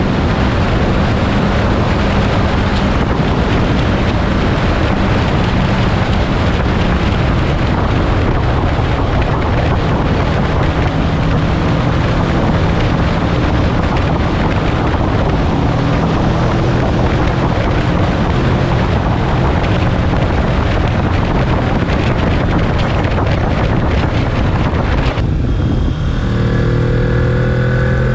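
Kawasaki Z650's parallel-twin engine running under way, nearly buried under heavy wind rush on the microphone. About 25 s in, the wind rush drops suddenly and the engine comes through clearer, rising in pitch as the bike accelerates.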